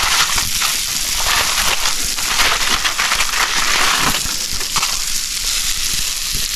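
Aluminium foil crinkling and crackling as it is peeled back off a foil tray of cooked vegetables. The crinkling is loudest for the first four seconds, then eases off.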